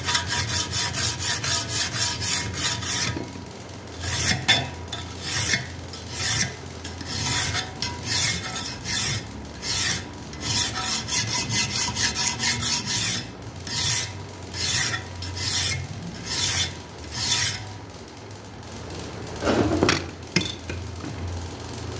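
Hand file rasping across the spine of a steel knife blade held in a vise, cutting decorative file-work (mosqueado) into it. Quick short strokes for the first few seconds, then slower, separate strokes about two a second, with a duller knock near the end.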